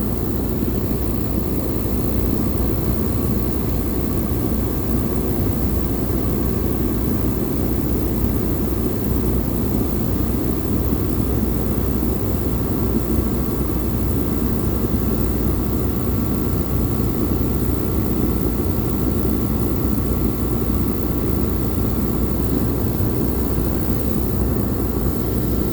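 Diesel heater running on its highest setting: a loud, steady, even rush of fan and burner that does not change, its sound sitting mostly low.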